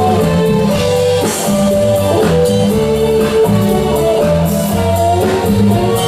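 Live band playing an instrumental passage of a Chinese pop song: drum kit, bass guitar, keyboard and electric guitar, with the guitar to the fore and no singing.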